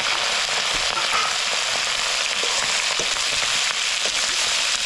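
Food sizzling steadily in hot oil, with scattered small pops and crackles.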